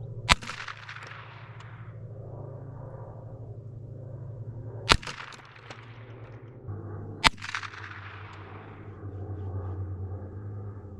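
Three single shots from an AR-15 rifle fitted with a .22 rimfire conversion kit, a few seconds apart, each followed by a trailing echo.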